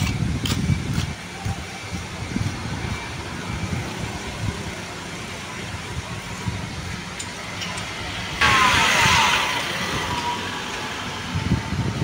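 Street ambience: an uneven low rumble of road traffic and wind. About eight seconds in, a sudden loud hiss starts and fades away over about a second and a half.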